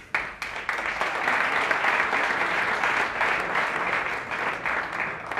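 Audience applauding, breaking out suddenly and tailing off near the end.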